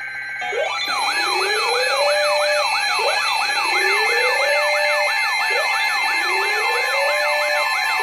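Electronic alert tones layered together: several steady tones, joined about half a second in by a fast warbling siren sweep of roughly three cycles a second and a slower wail that rises and holds, repeating about every two and a half seconds.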